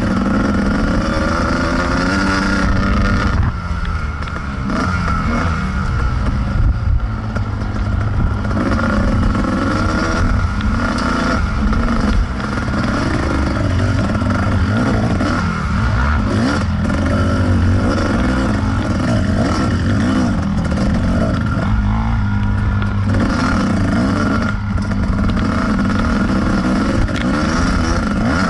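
Kawasaki KDX220 two-stroke single-cylinder dirt bike engine under hard riding, revving up and falling back over and over as the throttle is worked. The throttle eases off briefly about four seconds in.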